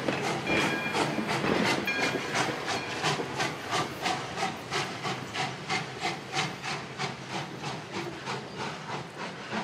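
Passenger train car rolling slowly past, with a rapid, even clicking about three times a second over a rumble and rub, fading as it moves away.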